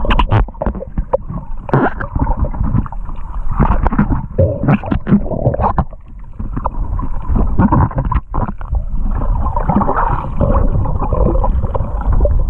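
Water movement picked up underwater by a camera's microphone drifting through shallow water: a constant low rumble with irregular clicks and knocks, dipping briefly about halfway through.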